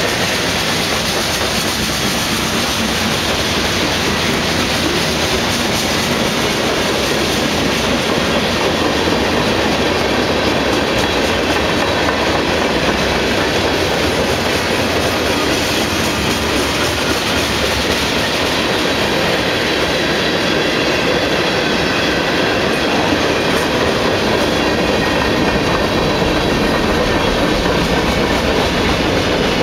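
A long freight train's covered hopper and tank cars rolling past, a steady rumble and rush of steel wheels on the rails.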